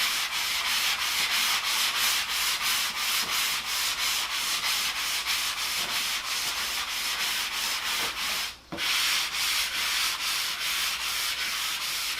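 Very fine sandpaper rubbed back and forth by hand over the satin clear-coated surface of a solid wood door, a light finishing sand of the cured clear coat. The strokes go in a steady rhythm of about three a second, with one brief break about eight and a half seconds in.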